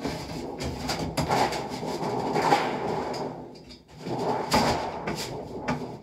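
A large sheet of sheet metal being handled and slid into a hand bending brake: the sheet flexes and scrapes against the brake's jaws, with sharp clanks and rattles. There are two busy stretches with a short lull just before the 4-second mark.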